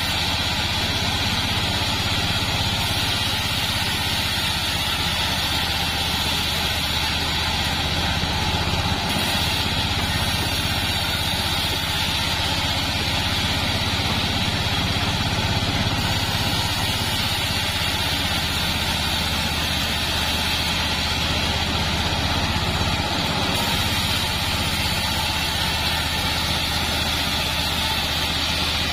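Bandsaw mill running as its band blade saws lengthwise through a sengon plank: a steady, loud machine drone with no breaks.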